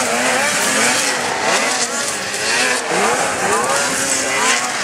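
Several racing snowmobiles' two-stroke engines revving hard, several at once, their pitch rising and falling over and over as the sleds race through the turns.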